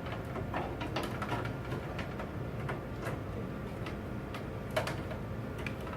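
Scattered light clicks and taps of a motherboard being set down and shifted onto the standoffs inside a metal PC case, over a low steady hum.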